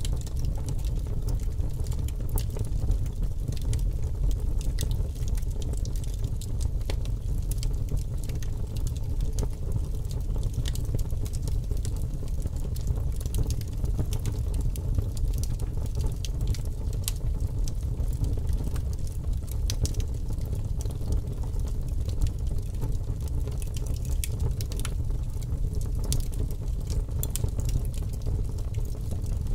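Fire burning: a steady low rumble with many scattered sharp crackles and pops.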